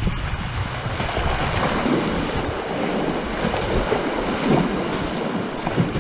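Rushing whitewater rapids close around a kayak's hull, a steady churning roar with splashing as the boat is paddled through the waves.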